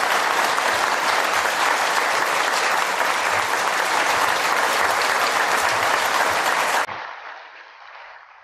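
Audience applauding steadily. About seven seconds in the applause cuts off abruptly, leaving only a faint, thin noise that fades away.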